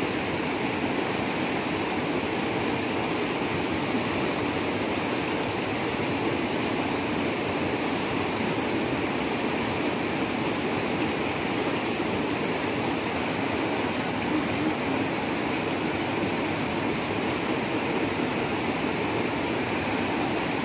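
Shallow river rushing over rocks: a steady rush of flowing water.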